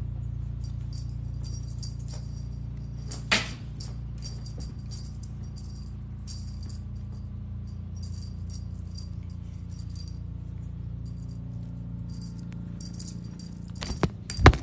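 Small bells jingling in irregular short bursts while cats play, over a steady low hum. There is a sharp knock about three seconds in and a few louder thumps near the end.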